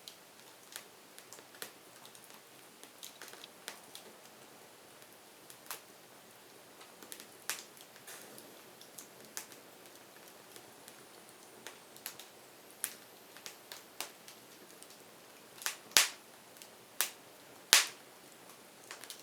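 Firewood crackling: irregular sharp pops and snaps over a faint hiss, with a few louder pops near the end.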